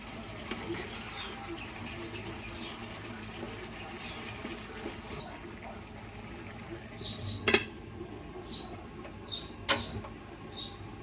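Kitchen cooking noise: a steady background of simmering and water, with two sharp clinks of kitchenware in the second half and short high chirps.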